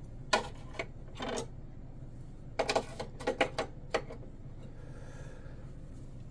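Light clicks and knocks of small parts and tools being handled on a workbench, a few single ones in the first second and a half, then a quicker run of them about three seconds in.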